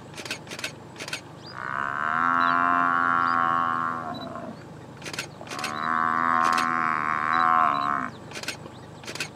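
African buffalo bellowing in distress while under attack by lions: two long bellows of about two and a half seconds each, with a pause between. A few sharp clicks come before, between and after the calls.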